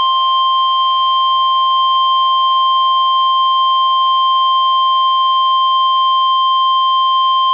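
NOAA Weather Radio warning alarm tone: a single loud, steady 1050 Hz tone held without a break. It sounds as part of a required weekly test of the alarm, not a real warning.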